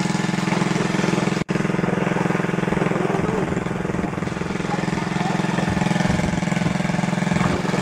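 A small engine running steadily at an even pitch, cutting out for an instant about a second and a half in.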